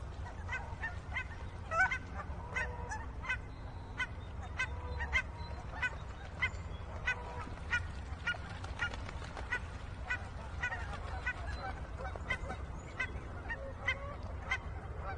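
Ducks quacking: a run of short calls, about two a second, over a steady low rumble.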